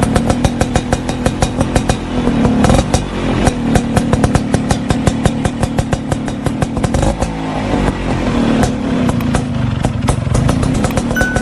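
Motorcycle engine running, with a rapid, even pulsing throughout.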